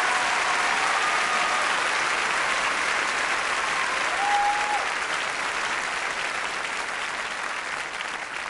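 Theatre audience applauding at the end of a musical number; the applause slowly dies down over the last few seconds.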